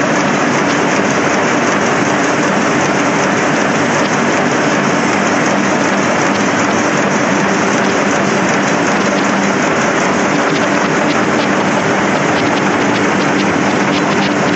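Loud, steady machine noise of a printing-press hall: a dense hiss with a fine rapid crackle over a low, even hum, unchanging throughout.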